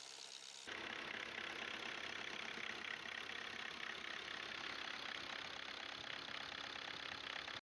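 Volkswagen Golf 6 1.6 TDI (CAYC/CAYB) four-cylinder diesel engine idling with a rapid, even clatter, louder from about a second in and cutting off suddenly near the end.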